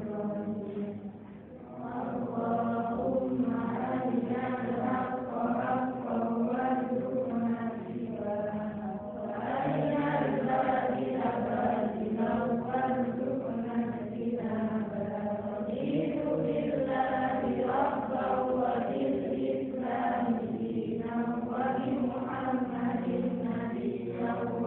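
A class chanting a closing do'a (Islamic prayer) together in unison, the voices held in long, melodic phrases.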